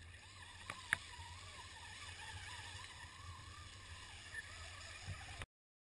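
Traxxas Rustler electric RC truck driving through shallow water: a faint wavering motor whine over light splashing and sloshing, with a single sharp tick about a second in. The sound cuts off abruptly near the end.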